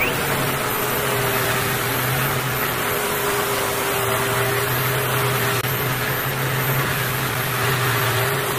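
A motor running steadily, with a constant hum and a steady whine that do not change.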